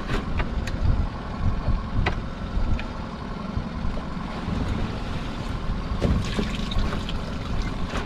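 Small boat rocking on the open sea as a lobster pot is hauled up by hand: a steady rumble of wind and water against the hull, a faint steady hum from the idling outboard, and scattered knocks as the rope and gear come aboard.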